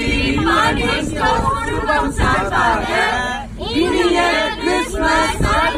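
A mixed group of men and women singing together in unison, without instruments.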